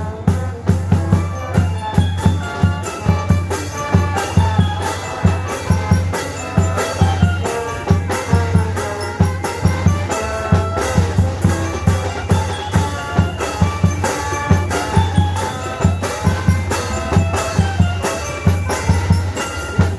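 Music with a steady, driving drum beat over a strong, deep bass and melodic instruments.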